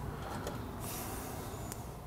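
Faint handling of a steel spiral lock and a small pocket screwdriver at an aluminium piston, over a steady low hum, with one light tick near the end.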